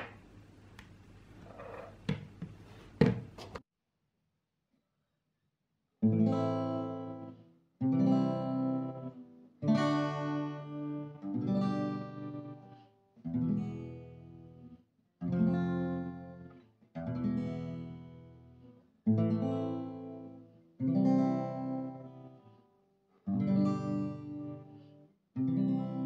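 A few sharp handling clicks, then, after a short silence, an acoustic guitar strummed one chord at a time, each chord left to ring and die away for about two seconds, about eleven chords in a row.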